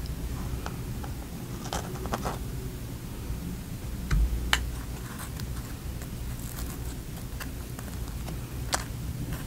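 Scattered small clicks and crackles of fingers handling a chocolate-glazed donut topped with an Oreo cookie and cream, a few sharper ones standing out, over a steady low hum.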